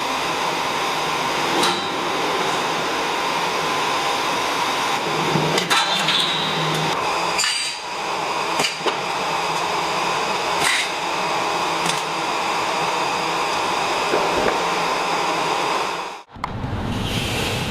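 Steady mechanical whirring and hissing from a running machine or tool, with a few short metallic clicks and knocks over it. It cuts off abruptly shortly before the end.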